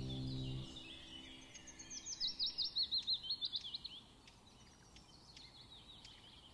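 Wild bird song: a rapid run of high, hooked chirping notes, about five a second, swelling for about two seconds and then trailing off into faint scattered chirps. Soft background music stops about half a second in.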